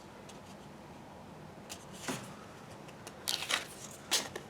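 Tarot cards being handled and turned over one by one: a few soft, brief papery swishes and taps, starting about two seconds in.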